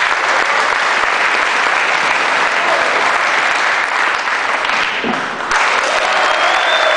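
Audience applauding, a dense steady clapping that thins briefly about five seconds in and then swells again.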